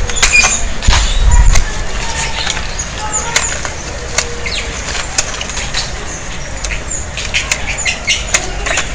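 Hand pruning shears snipping small twigs off a fruit tree: a string of sharp clicks and snaps, with leaves rustling and a low rumble of branch handling in the first second and a half. Short high chirps repeat all through.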